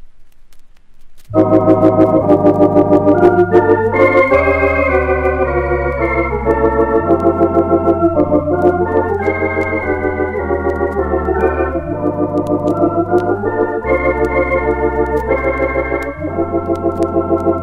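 Lowrey Contempo 80 electronic organ playing sustained chords over a bass line that changes note every second or two. The organ comes in about a second in, after a quiet gap.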